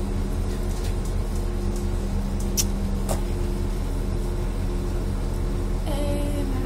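Steady low hum inside a passenger train carriage, with a few even humming tones held throughout. Two sharp clicks come a little past halfway, about half a second apart.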